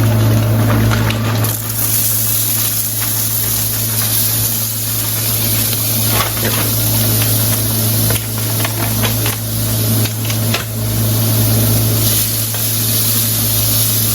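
Chopped jalapeños and meatless beefless grounds sizzling in a frying pan, with a few light ticks, over a steady low hum.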